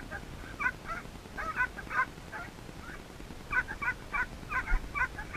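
Short honking calls repeated throughout, in uneven clusters of two to four notes.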